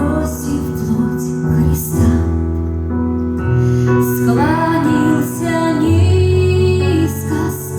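A woman singing a Christian song, her voice held on long notes with vibrato, over an instrumental accompaniment of steady bass notes that change every second or two.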